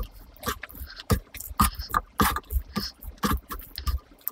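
Bare hand squeezing and mixing cooked rice with tomato curry: an irregular run of sticky, squelching clicks with short gaps between them.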